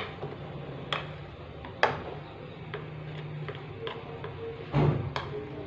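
A spoon stirring thick gram-flour batter in a glass bowl, clicking against the glass every so often; the loudest click comes about two seconds in, with fainter ones near the end.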